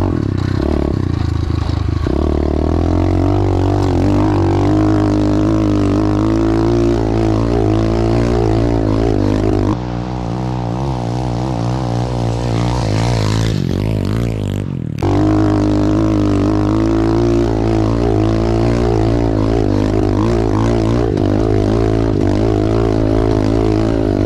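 SSR 125cc pit bike's single-cylinder four-stroke engine under load while being ridden through whoops, its revs rising and falling over and over. It is somewhat quieter for a few seconds from about ten seconds in, then comes back up to full volume abruptly.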